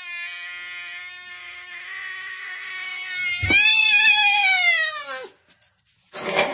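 Domestic cat yowling: a long, steady, low moan, then about three seconds in a louder yowl that rises and falls in pitch over about two seconds. The cat is yowling at another cat on the other side of a glass door.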